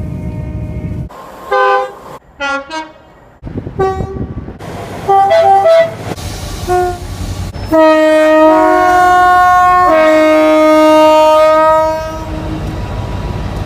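Train horns sounding: a string of short blasts with abrupt cuts between them, then a long, loud two-tone horn held for about four seconds, over the low rumble of the train.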